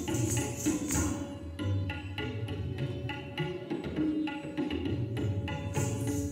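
Kathak dance music: tabla playing a steady rhythm over a held melody line, with a high shimmer that drops out about a second and a half in and returns near the end.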